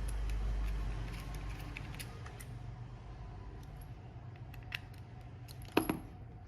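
Scattered small plastic clicks and taps from an Akko LW325 mouse being handled and fitted back together, with one sharper, louder click near the end, over a low steady hum.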